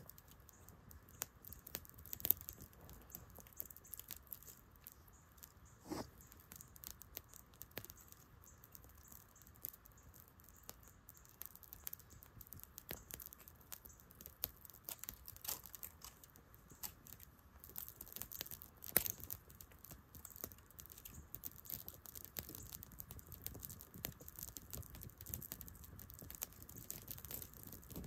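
Small, newly lit kindling fire of twigs and brush crackling in irregular faint clicks and pops, with a few louder snaps among them.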